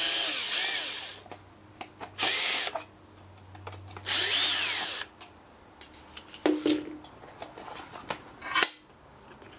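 Ryobi One+ 18V cordless drill-driver spinning in three short bursts, its motor whining, as it backs out the screws holding a car engine-computer circuit board in its metal case. A couple of knocks follow as the board is handled.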